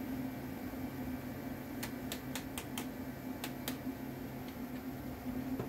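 A mallet tapping steel pins down into a small plate assembly held in a bench vise, driving them home as a tight push fit: a run of sharp taps starting about two seconds in, two fainter taps after it, and a heavier knock right at the end. A steady low hum runs underneath.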